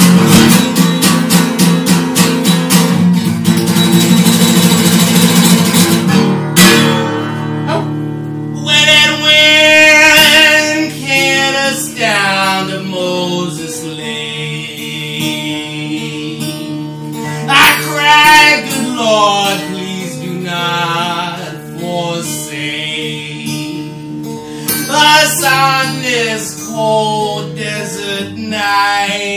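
Acoustic guitar strummed fast and hard, then from about six seconds in a man sings over ringing guitar chords.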